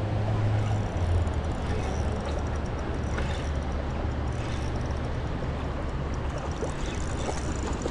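Steady rush of water flowing below a dam, with a constant low rumble.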